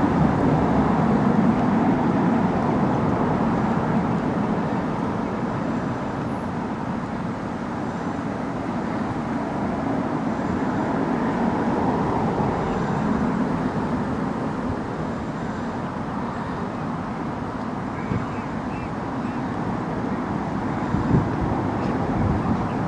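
Steady rumble of road traffic, an even, unbroken noise. There is a brief knock near the end.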